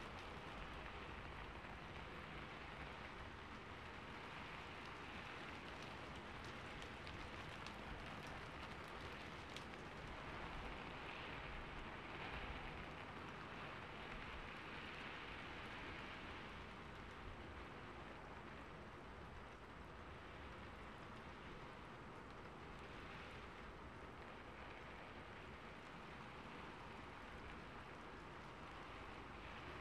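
Steady rain, a faint, even hiss, with a few light clicks in the first ten seconds or so.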